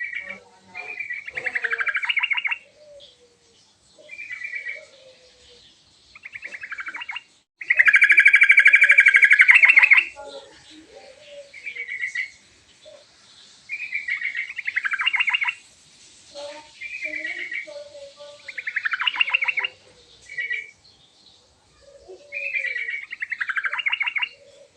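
Yellow-vented bulbul (trucukan) singing: short bubbly chattering phrases repeated every second or two, with one longer, louder phrase about eight seconds in.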